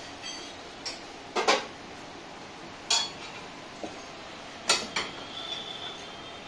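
A metal tyre lever knocks and clinks against a tyre-changing machine's mount head and a motorcycle wheel's alloy rim as a tyre bead is levered on. There are about five sharp metallic clinks, spaced irregularly, each with a brief ring.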